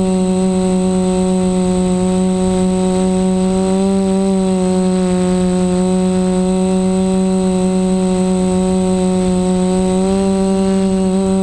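Reptile Aphid 450 quadcopter's DJI 920KV brushless motors and propellers humming steadily in flight, heard close from the onboard camera, with a thin high whistle above. The pitch lifts slightly about four seconds in and again near the end.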